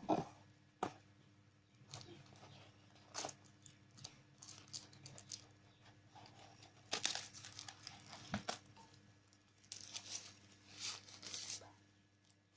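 Phone packaging being torn open and crinkled by hand: irregular rustling and tearing with a few sharp clicks, loudest in bursts about three, seven and ten to eleven seconds in.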